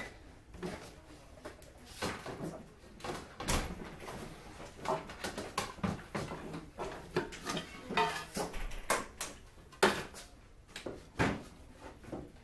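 Irregular clicks, light knocks and rustling of goods and a plastic bag being handled on a shop checkout counter, with two louder knocks near the end.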